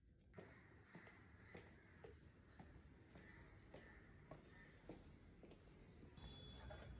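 Faint small birds chirping, short high calls sliding down in pitch and repeated every half second or so, over soft regular ticks about twice a second.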